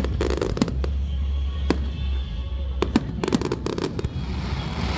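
Fireworks display bursting overhead: a string of sharp bangs, some single and some in quick crackling runs, with a sizzling crackle near the end.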